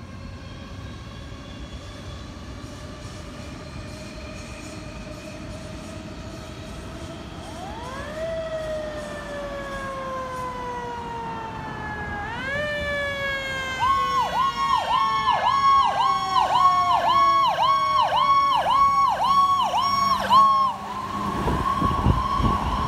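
Fire engine's Federal Signal PowerCall electronic siren, getting louder as the truck approaches. It winds up and down in a slow wail twice, then switches to a fast yelp cycling about twice a second. Near the end it changes to a steady held tone as the truck passes, with its engine rumbling beneath.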